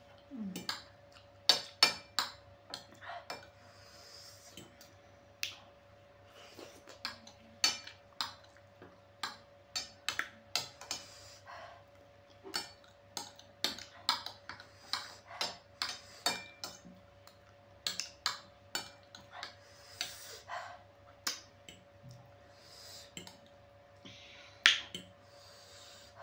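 Metal spoon and fork clinking and scraping against a ceramic plate while the last noodles are gathered up, in many sharp, irregular clinks. Softer chewing and slurping sounds come between them.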